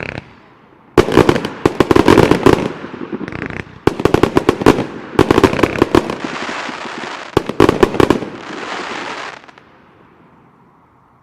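1.3G display fireworks going off: rapid volleys of sharp bangs with crackling between them. They stop about nine and a half seconds in.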